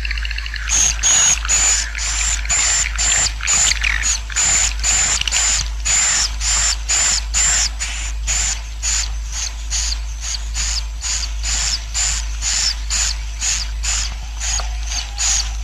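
Swiftlet colony calls played as a roosting lure ('suara inap' for edible-nest swiftlet houses): a long run of repeated chirps, about two a second, each with a thin high note.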